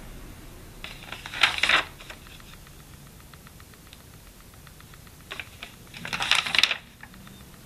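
Paper notebook pages being turned by hand: two brief rustling flips, about a second and a half in and again just after six seconds.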